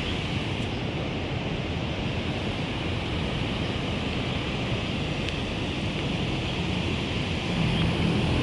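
Steady outdoor rushing noise, even and without rhythm. Near the end a motor vehicle's engine hum comes in and grows louder as it approaches.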